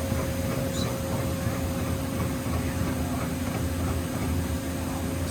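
Steady hum of industrial machinery running idle, with a constant mid-pitched whine over a low rumble and no punch strokes.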